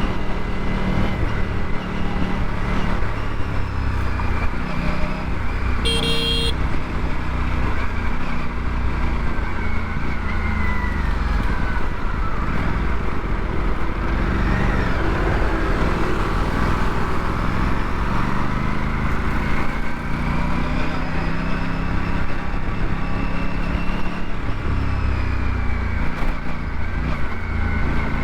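Aprilia RS 457's parallel-twin engine running while ridden through traffic, its pitch rising and falling several times as the revs change, over road and wind noise. A short high-pitched blip comes about six seconds in.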